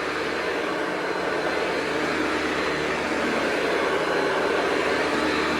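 Hoover Convertible U4345 upright vacuum cleaner running steadily, a constant motor and airflow noise with a faint steady hum.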